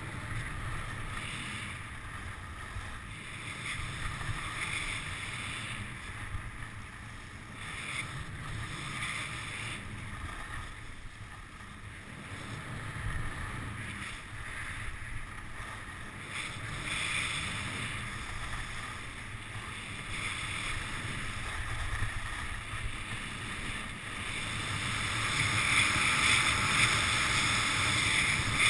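Skis scraping over firm spring snow through a series of turns, each turn a swell of edge noise, with wind rushing over the microphone. The scraping grows louder in the last few seconds.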